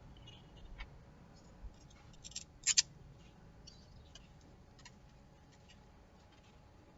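Scattered light clicks and scrapes of small parts and tools being handled, with a louder cluster of sharp clicks a little before three seconds in.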